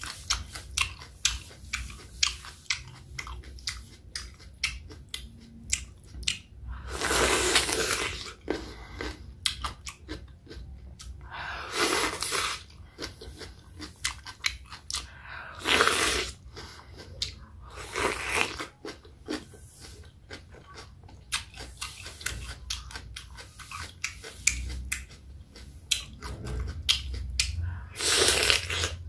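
Close-miked chewing of raw cucumber: crisp crunching bites and wet mouth clicks. Several louder bites about a second long come every few seconds.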